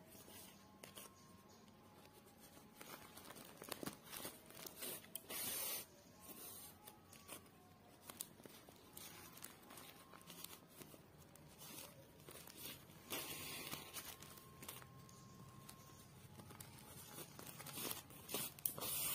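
Faint rustling and scraping of yarn being pulled with a needle through a woven plastic sack, the plastic crinkling under the hands. It comes in a few bursts a second or two long, with quiet handling noise between.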